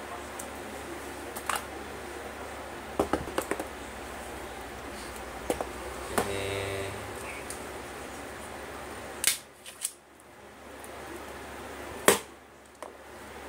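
Hands handling and unwrapping a shrink-wrapped phone box on a tiled floor: scattered sharp clicks and taps of the box and plastic wrap, the loudest near the end, over a steady low hum.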